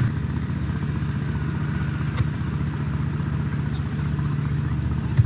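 Heavy military truck's diesel engine running steadily with a low, even engine note. There is a faint click about two seconds in and a sharp knock near the end.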